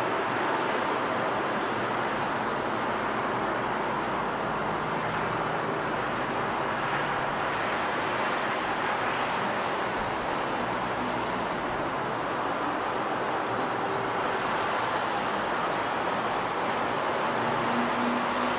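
Steady outdoor background noise with birds chirping now and then in short, high calls.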